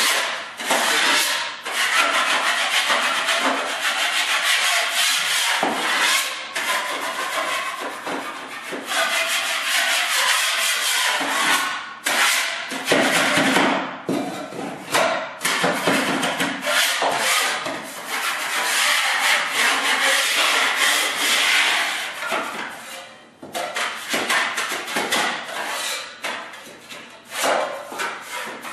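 Drywall knife scraping dried joint compound on an inside corner in many repeated strokes, with brief pauses about twelve and twenty-three seconds in. The scraping knocks off the high spots and knife marks left in the second coat so nothing obstructs the final coat.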